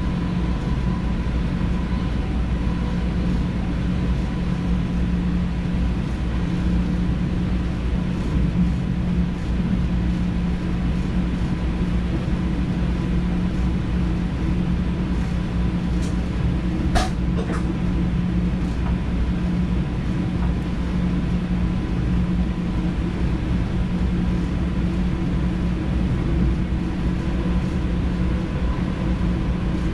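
Cab of an NS DDZ double-deck electric train running along the line: a steady rumble of wheels on rail under an even electrical hum. A couple of sharp clicks come about two-thirds of the way through.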